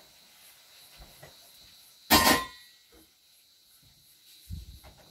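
A single loud clatter of cookware about two seconds in, with a brief ring, then a dull thump near the end.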